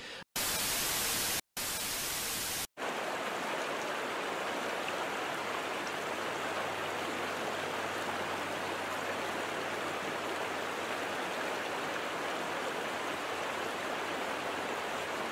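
Steady static-like hiss, even across all pitches, broken by three brief dropouts to silence in the first three seconds; the first two stretches are louder and brighter than the rest.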